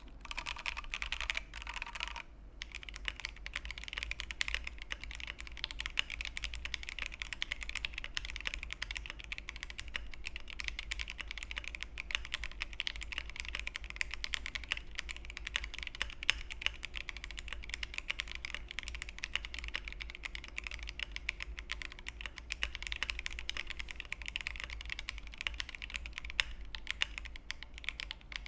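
Steady, fast typing on an Akko MOD-series aluminium gasket-mount mechanical keyboard with hot-swap Akko switches, a dense run of keystroke clicks with a brief lull about two seconds in. Despite the case and plate dampening foam, the typing still sounds somewhat hollow.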